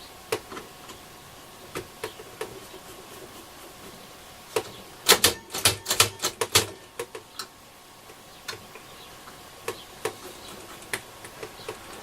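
Sharp clicks and small metallic knocks of a hand tool working at the grub screws of a transistor radio's tuner knob. A quick run of louder clicks and rattles comes about five to seven seconds in.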